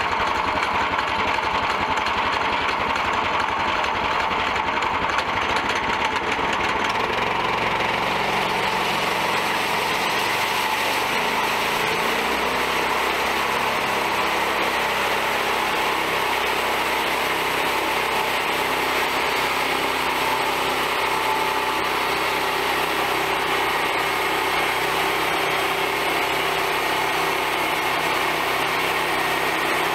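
Small gasoline engine of a band sawmill running at speed while the band blade cuts along a log. The sound grows brighter and shifts between about seven and twelve seconds in, then holds steady.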